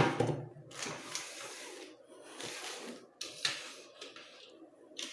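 Hands handling two pairs of plastic sunglasses and their packaging: a sharp click, then a few short rubbing and rustling sounds about a second apart.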